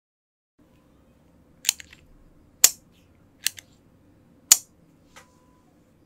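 Loose Moondrop linear keyboard switches clicking one at a time: five sharp plastic clicks about a second apart, the last one softer, over a faint room hiss.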